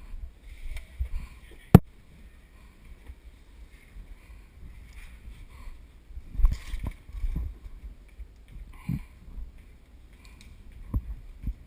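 Rustling and low thumps of an airsoft player moving with a body-worn camera, with one sharp crack about two seconds in and a few heavier knocks later.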